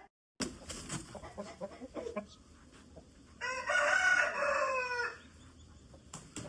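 An Aseel rooster crows once, a single long call lasting a little under two seconds, starting about three and a half seconds in. Chickens cluck softly around it.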